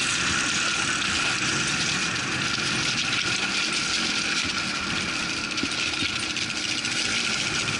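Quad bike engine running steadily while riding over loose river gravel, under a constant rush of noise.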